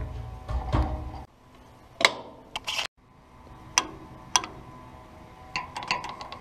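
Sharp metallic clicks and knocks from handling the parts of a 1948 Farmall Cub tractor, first its fuel tank cap and then the control levers by the seat, a few separate clicks with a quick cluster near the end. A low rumble runs under the first second and stops.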